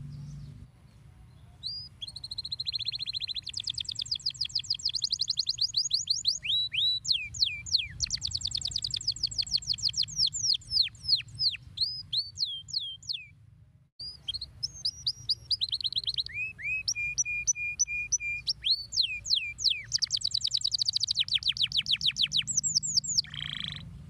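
Domestic canary singing: long song phrases of rapid high trills and repeated down-sweeping whistled notes, with a brief break about halfway through.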